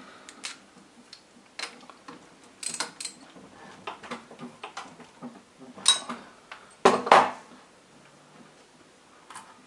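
Scattered metal clinks and taps of small engine parts and tools being picked up and handled, with the loudest knocks about six and seven seconds in.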